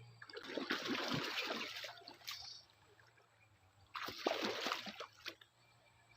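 Water splashing in a shallow stream in two bursts of about a second and a half each, one near the start and one about four seconds in.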